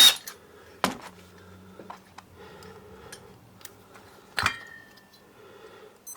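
Small metal engine parts being handled and set down on a workbench: scattered light clicks and taps, with one sharp metallic clink about four and a half seconds in that rings briefly.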